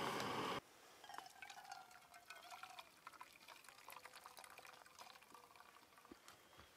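A steady hiss cuts off suddenly about half a second in. It is followed by faint clinks and liquid trickling: coffee being poured and stirred at a camp breakfast.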